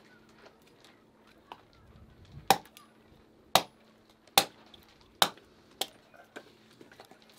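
Hatchet chopping firewood: five sharp blows of the blade into the wood, a second or less apart, starting about two and a half seconds in, with a few lighter knocks around them.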